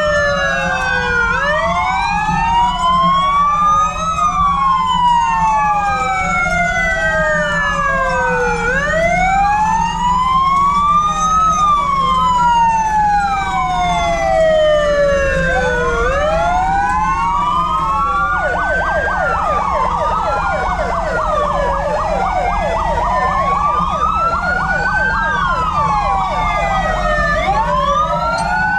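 Several emergency-vehicle sirens of fire-brigade vehicles wailing at once, their rising and falling sweeps overlapping out of step; about two-thirds of the way through one switches to a fast yelp. A steady low rumble of vehicle engines runs underneath.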